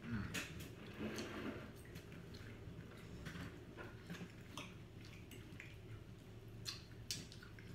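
Close-up eating sounds: chewing, with scattered light clicks and scrapes of a knife and fork on plates as a T-bone steak is cut.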